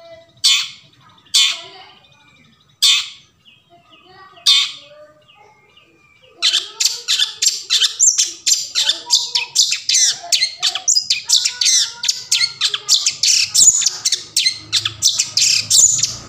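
Long-tailed shrike (cendet) giving four separate harsh calls, then breaking into a rapid, continuous chattering song about six seconds in.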